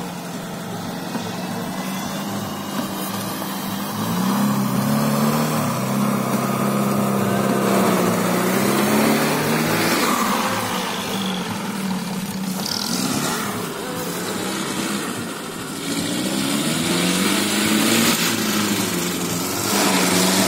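Off-road 4x4 vehicle engine running under load, its pitch rising and falling as it is revved several times, over the rumble of the vehicle moving.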